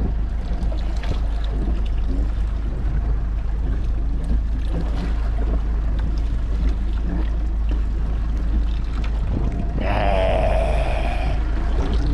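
Wind buffeting the microphone and sea noise around a small boat, a steady low rumble. About ten seconds in comes a brief wavering high tone, lasting about a second and a half.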